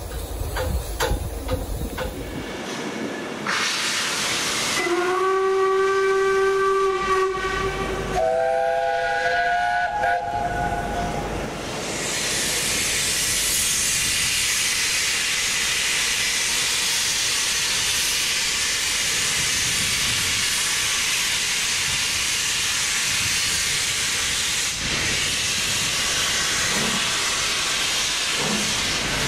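Two steam locomotives, LMS Black Five 45231 and LNER A4 4498, whistle one after the other: a single-note whistle for about three seconds, then at once a chord whistle for about three seconds. Then comes a loud, steady hiss of steam from the cylinder drain cocks as they get ready to move off.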